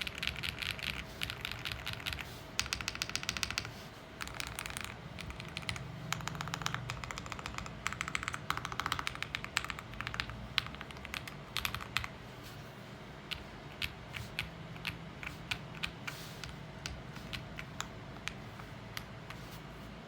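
QK65 mechanical keyboard with lubed KTT Rose linear switches, an FR4 plate and ABS double-shot keycaps, typed on with a clacky sound. Fast runs of keystrokes give way, about twelve seconds in, to single key presses roughly half a second apart.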